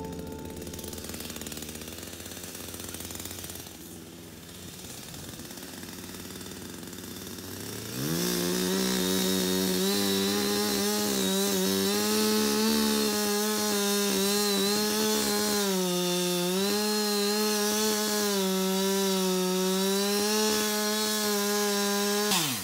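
Two-stroke chainsaw cutting down a tree. After a quieter stretch it is throttled up sharply about a third of the way in and runs at high speed with a steady, buzzing pitch that sags slightly now and then as the chain bites into the wood. It cuts off suddenly near the end.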